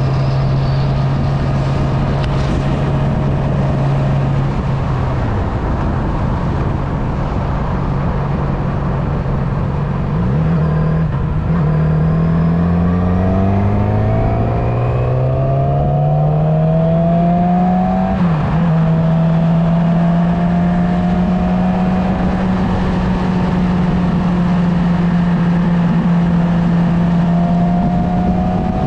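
Motorcycle engine under way. It holds a steady pitch, eases off about five seconds in, then climbs in pitch as it accelerates from about ten seconds in. It drops sharply at a gear change around eighteen seconds in, then runs at a steady cruising pitch over constant wind and road noise.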